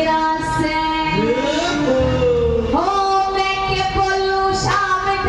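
Devotional song (bhajan) sung with musical accompaniment, the voice holding long notes and sliding between them.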